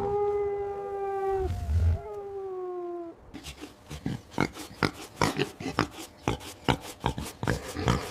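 An animal's long call on one held pitch, broken once and then trailing slightly lower, followed about three seconds in by a quick, irregular run of sharp clicks.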